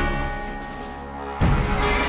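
Background music: a held chord fades away, then the music comes back in loudly about a second and a half in.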